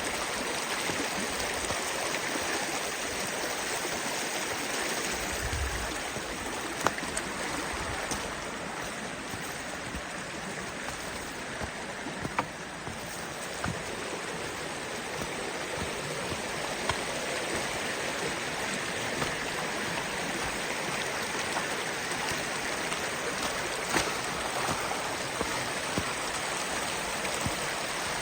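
Creek water rushing steadily over rocks, with a few brief sharp knocks scattered through it.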